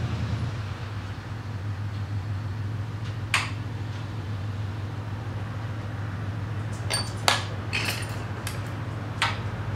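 Lampworking at a bench torch: a steady low hum with a few sharp clinks of glass rods and metal tools, one about three seconds in and a small cluster near the end.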